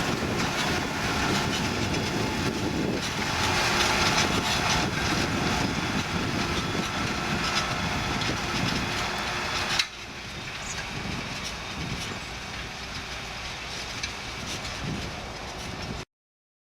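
John Deere 7280R tractor running under load, pulling an eight-furrow plough through grass, a dense, steady rumble and clatter. It drops suddenly to a quieter level about ten seconds in and cuts off abruptly near the end.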